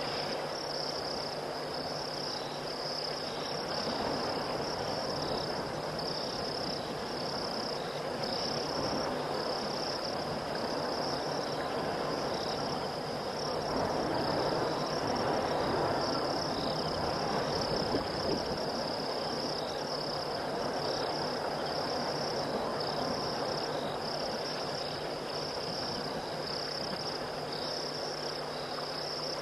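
Night chorus of crickets and other insects: a steady, high-pitched pulsing trill over a broad hiss that swells for a few seconds around the middle.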